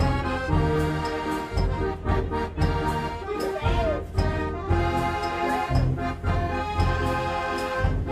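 A 105-key Decap dance organ playing a tune: held organ chords with bass notes and drum and cymbal strokes keeping a steady beat.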